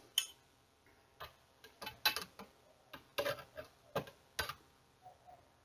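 Light clicks and knocks of Hi-Point 995TS carbine parts being handled as the receiver cover is fitted back on, about a dozen, irregularly spaced, dying away about four and a half seconds in.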